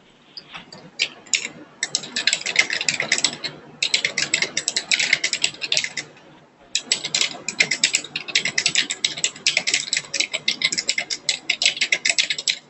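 Fast typing on a computer keyboard: a few scattered key clicks, then long runs of rapid clicking, broken by a short pause a little past the middle.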